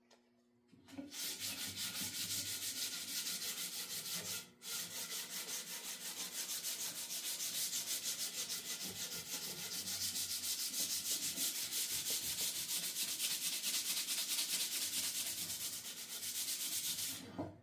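Hand-sanding a wooden axe handle with abrasive cloth: a steady run of quick back-and-forth rasping strokes. It starts about a second in, breaks off briefly about four and a half seconds in, and stops just before the end.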